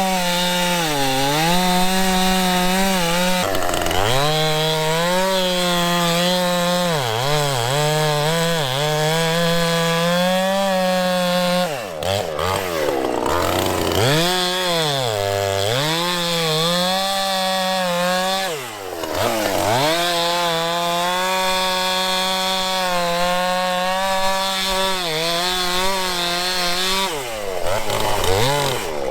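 Chainsaw cutting into a fallen tree trunk, running at high revs, its engine pitch dipping and climbing back several times.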